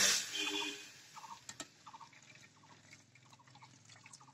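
Boondi batter dripping through a perforated ladle into hot oil in a karahi: a loud surge of sizzling at the start, settling into quieter crackling and spitting. A couple of sharp clicks come about a second and a half in.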